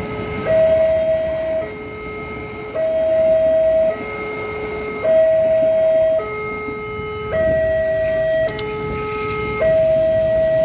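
Railway level-crossing warning siren sounding its two-tone alarm: a higher and a lower tone alternating, each held about a second. For a few seconds past the middle a second, out-of-step tone pattern overlaps it, and a single sharp click sounds near the end.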